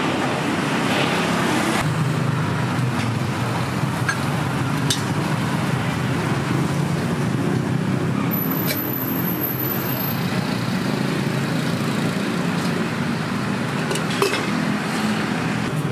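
Steady road traffic noise from a busy street, with a few short clicks scattered through it.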